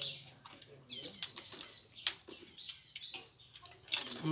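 Scattered clicks and clinks of spoons against bowls and the serving pot as people eat, one sharper clink about two seconds in, with faint small-bird chirps behind.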